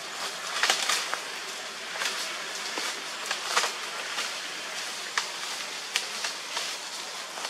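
Dry leaves and twigs crackling and snapping in scattered sharp bursts over a steady high hiss of forest ambience.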